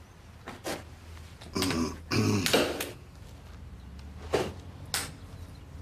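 A person rising from a sofa on forearm crutches, with rustling and a short effortful vocal sound about two seconds in. Then two separate knocks, the crutch tips set down on the floor as she starts to walk.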